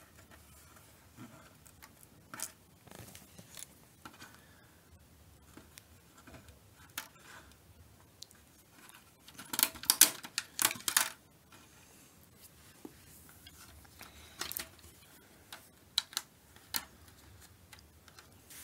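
Adhesive tape being peeled off the circuit boards and metal chassis inside an LCD TV: short crackly rips and rustles, loudest in a cluster about halfway through, with scattered small clicks and taps between them.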